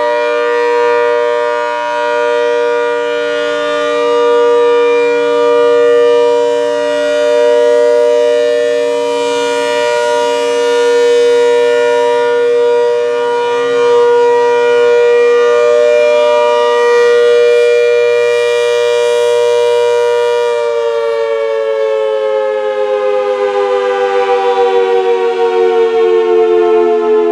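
ACA Hurricane 130 MKII outdoor warning siren sounding its steady two-note chord, swelling and fading in loudness every couple of seconds. About twenty seconds in, the pitch begins to slide steadily downward as the siren winds down.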